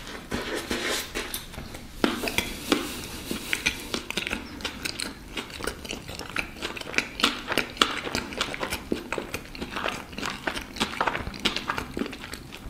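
Close-up chewing of a bagel with cream cheese, cucumber and arugula: a steady run of small wet clicks and crackles from the mouth, with a few sharper clicks.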